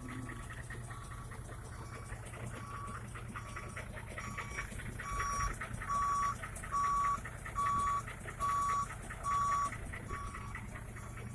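Electronic warning beeper sounding a steady beep about every 0.8 s, faint at first and then much louder for six beeps in the second half, over the steady low hum of an idling vehicle engine.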